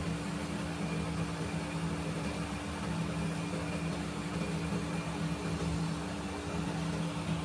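Steady low machine hum, a constant drone that does not change.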